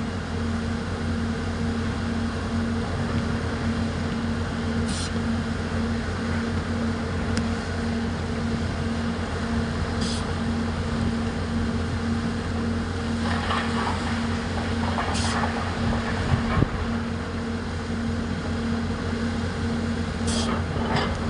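Heavy diesel quarry machinery, an excavator and mining dump truck, running steadily with a deep, even drone and hum.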